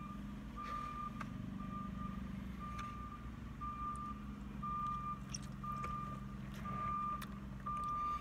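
Vehicle reversing alarm beeping steadily, a single high beep about once a second, over a low steady engine hum.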